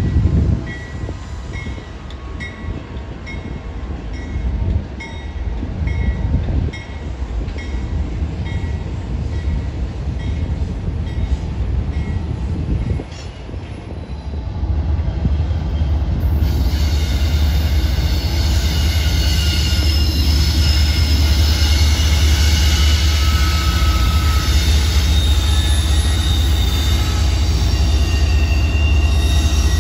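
Freight train rumbling past, with faint ringing ticks about once a second. About sixteen seconds in, it gives way to CSX diesel locomotives pulling a freight train: a loud, steady low engine drone, with high, wavering wheel squeal from the track.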